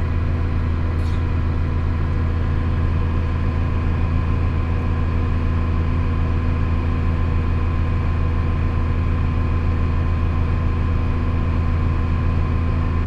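Diesel engine of farm harvest machinery running steadily at a constant speed: a deep, even drone with a fixed hum that does not change.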